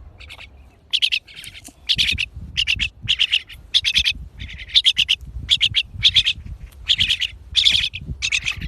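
Pet crested mynas calling: a run of short, harsh chirps, about two a second, starting about a second in.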